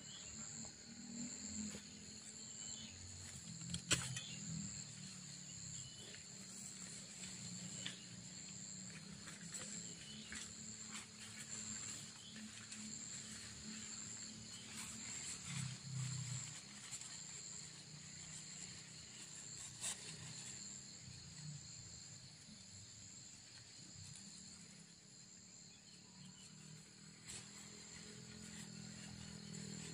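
Outdoor campsite ambience: a steady high-pitched drone over an uneven low rumble, with a few sharp knocks, the loudest about four seconds in and another about twenty seconds in, from someone moving about and handling gear inside a nylon tent.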